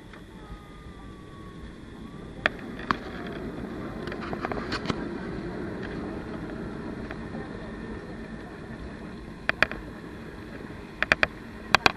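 Airliner cabin noise while taxiing: a steady rumble of engines and rolling that swells in the middle, with a series of sharp clicks and knocks, several in quick succession near the end.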